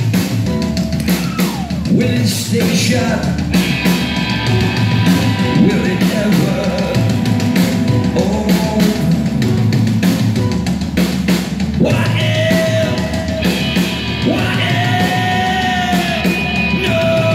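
Live goth rock band playing loud, with a steady drum kit and bass under a male lead singer's voice, which holds long sung notes in the second half.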